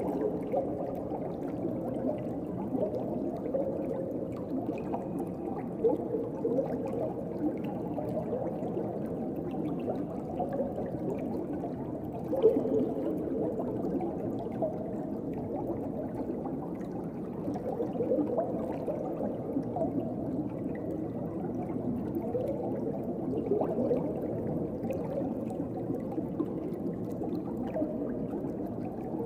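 Underwater ocean ambience: a steady, muffled wash of water with gentle bubbling and gurgling, and a slightly louder bubble about twelve seconds in.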